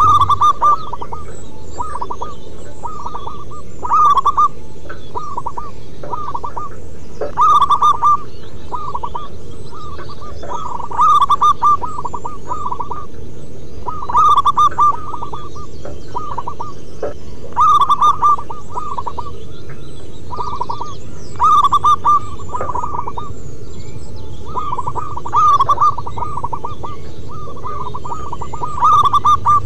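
Zebra doves (perkutut) cooing: rapid, rippling strings of short coos in phrases, a loud phrase about every three and a half seconds with quieter phrases in between, over a steady low background hiss.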